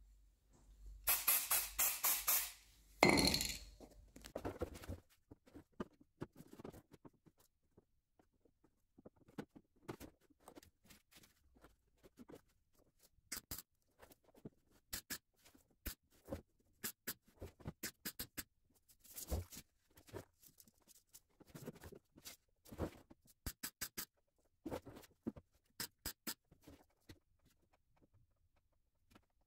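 Aerosol can of zinc spray paint hissing in two short bursts, coating a steel rocker-panel repair patch before welding. After that come faint scattered clicks and ticks, some in quick runs, with quiet music.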